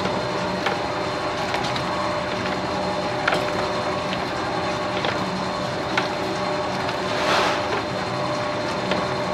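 Commercial dough mixer running steadily, its dough hook kneading bread dough in a stainless-steel bowl, with a constant motor hum and whine. Irregular sharp clicks and knocks sound through it as the dough turns, with a short louder rush about seven seconds in.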